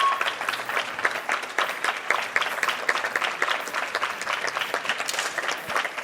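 Crowd clapping along in a quick, steady rhythm.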